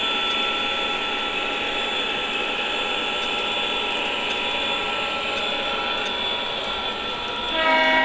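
O gauge model train running on the track: a steady rolling rumble of wheels with a few held tones from the diesel locomotive's sound system. About seven and a half seconds in, its electronic horn starts to blow, louder.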